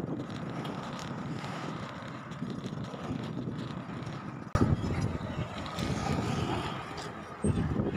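Road travel noise with wind buffeting the microphone, a steady rushing haze that jumps abruptly louder about halfway through.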